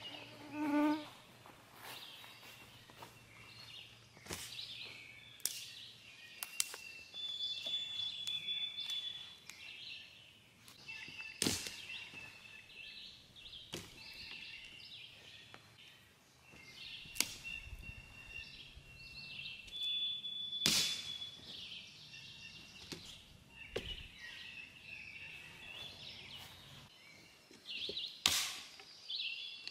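Dry sticks and twigs being handled, broken and dropped onto a kindling pile: rustling and clattering with a handful of sharp snaps spread through. Birds sing in the background, with short clear whistled notes.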